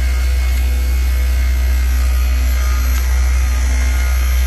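Daikin JT1G inverter compressor in a VRV package unit running with a loud, steady low hum and faint steady higher tones. The compressor is failing.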